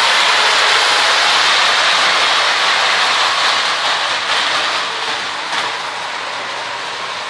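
O gauge tinplate electric model trains running on three-rail metal track: a steady rushing whir of wheels and motors on the rails, dropping somewhat after about five seconds as a train moves off.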